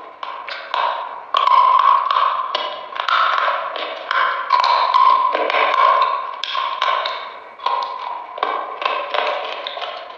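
Close-up crunching as hard, crispy chunks of frozen dessert are bitten and chewed: a fast, irregular run of sharp crackling crunches, some much louder than others.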